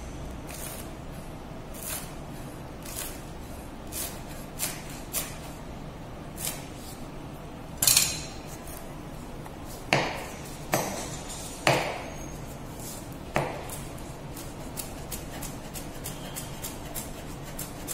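Chef's knife chopping a scallion stalk on a cutting board: sharp knocks of the blade striking the board, about one a second at first, then a quicker run of lighter taps near the end.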